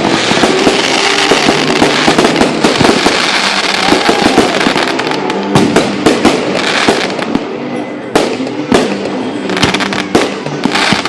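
Fireworks display: a dense, continuous barrage of bangs and crackling, thinning to a few separate booms near the end.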